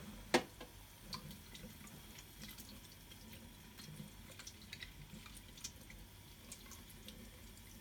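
A thin stream of lukewarm tap water running into a stainless steel sink as a nebulizer mouthpiece and medicine cup are rinsed by hand, with a few small clicks of the plastic parts being handled. The loudest is a sharp click about a third of a second in.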